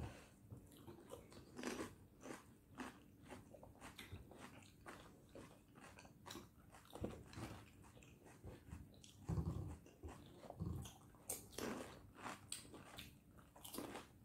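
Pani puri being eaten fast: crisp puri shells crunching between the teeth and wet chewing, many short crunches one after another. A couple of dull thumps come about two-thirds of the way through.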